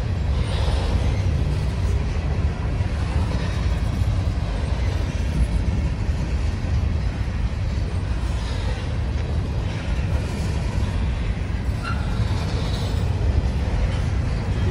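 Empty covered hopper cars of a freight train rolling past: a steady low rumble of steel wheels on the rails.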